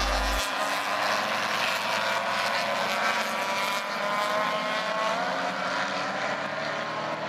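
A pack of historic touring and muscle race cars under race power, several engines heard at once with their pitches rising and falling through gear changes as they pass.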